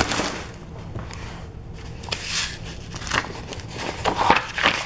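Paper rustling and crinkling as sheets of an invoice are handled and their pages turned, with a sharp click right at the start.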